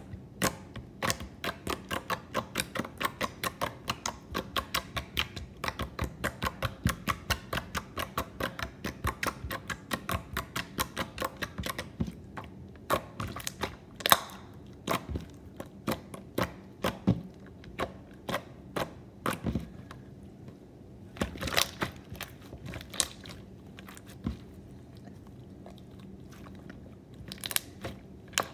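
Thick jiggly slime being poked and squeezed by hand, making wet clicking sounds. The clicks come quickly, about three a second, for the first twelve seconds, then slow to scattered, louder pops as the slime is folded.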